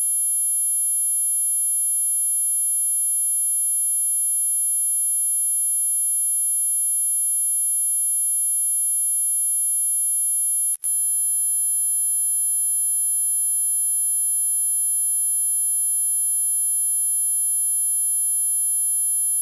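Continuous very high-pitched electronic tone, with fainter steady tones at lower pitches beneath it, unchanging apart from one momentary dropout about eleven seconds in.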